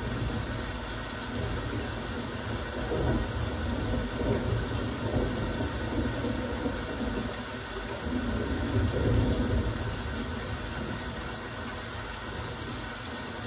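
Steady rain falling, a dense even hiss of drops, over a low rumble that rises and falls.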